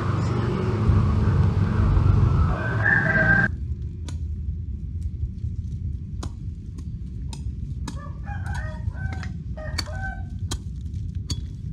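Bird calls over a loud low rumble, which cuts off suddenly about three and a half seconds in. A quieter low hum follows, with scattered clicks and a few short calls.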